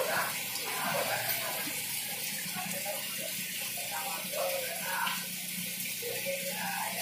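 Steady rush of running water from the aquarium tanks' filters and outflows, with indistinct voices murmuring in the background.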